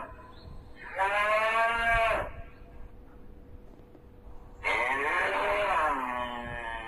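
Cattle mooing twice: a call lasting just over a second about a second in, then a longer call near the end that falls in pitch.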